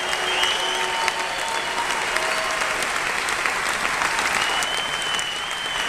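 Concert audience applauding and cheering, with high whistles over the clapping.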